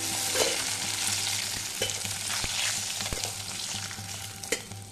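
Fish pieces sizzling in hot oil in a metal kadai, with about five sharp clicks and scrapes of a metal spatula against the pan as the fried fish is lifted out.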